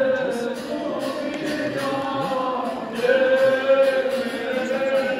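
A choir singing a slow church hymn in long held notes, with a new phrase beginning about three seconds in.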